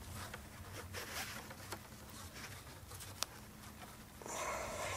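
Cord being wrapped around cedar posts in a lashing: soft rustling and scraping of rope on wood, a sharp click about three seconds in, and a longer rasping swish near the end.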